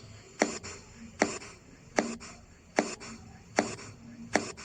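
Percussion of a patient's body, a finger tapping over a gas-filled cavity: six short, sharp knocks at a steady pace, a little more than one a second. This demonstrates the tympanic percussion note.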